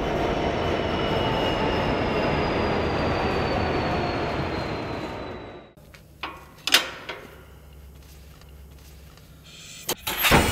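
Diesel-hauled ore train rolling slowly, a steady rumble with a high wheel squeal that falls slowly in pitch. About six seconds in the sound drops to a quieter low hum broken by a few sharp metallic clanks, with two loud clanks near the end.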